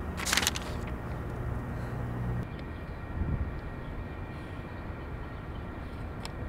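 Wind gusting, rumbling on the microphone, with a short crisp rustle of paper flapping about half a second in.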